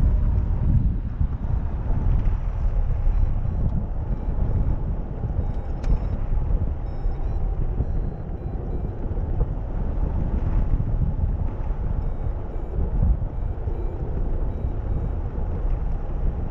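Steady rush of wind buffeting the microphone of a camera on a hang glider in flight, with a low, rumbling roar from the airflow.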